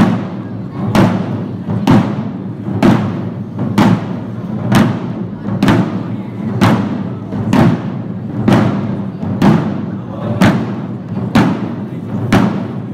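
Shishi odori deer-dance drums beaten in a slow, steady beat, about one stroke a second.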